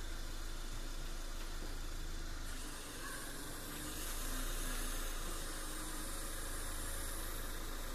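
Steady low machine hum, like an idling engine, under a haze of noise, with a high hiss building from about two and a half seconds in.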